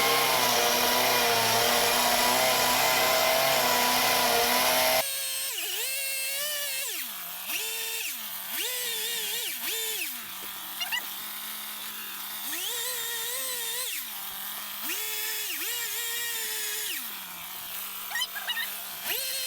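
Chainsaw held at full throttle, cutting steadily for about five seconds. After that it is revved in repeated short bursts, each time dropping back to a steady idle between short cuts.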